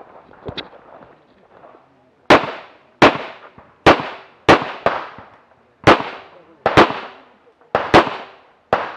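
Tanfoglio Limited semi-automatic pistol fired in a rapid string of about ten shots, some in quick pairs, starting about two seconds in. Each shot is a sharp crack with a short echoing tail.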